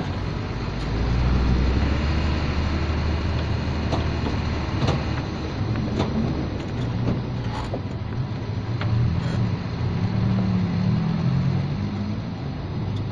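Hino truck's diesel engine running, heard from inside the cab as the truck creeps along, its low drone swelling about a second in. Scattered sharp clicks and creaks from the cab.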